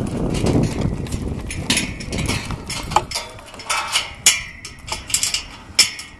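Irregular sharp clinks and knocks, about half a dozen over a few seconds, from a horse being handled at a metal pipe-panel corral gate, after a low rushing noise in the first two seconds.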